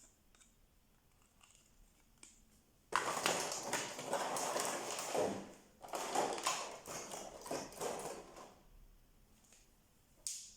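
Packaging being handled during unboxing: two bouts of crinkling and crackling, each two to three seconds long, with light clicks and taps before them and a single sharp tap near the end.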